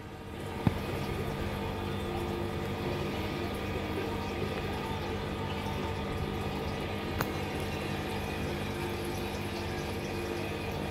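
Aquarium water pump or filter running, with steadily moving water and a low steady hum. A sharp click comes just under a second in, and a fainter one later.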